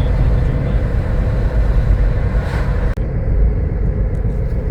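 Steady low rumble of a car driving, road and engine noise with no speech; about three seconds in the higher hiss cuts out abruptly while the rumble carries on.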